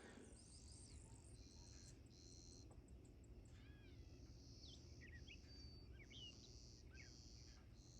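Faint insect trilling in short bursts of about half a second, repeated steadily, with a few small birds chirping from about the middle on.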